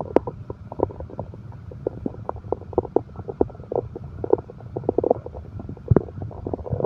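Stomach growling: a run of irregular, bubbly gurgles and short pops over a continuous low rumble, with one stronger low thump near the end.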